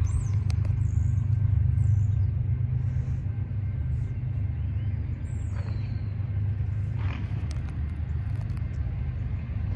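Steady low rumble with small birds chirping now and then above it.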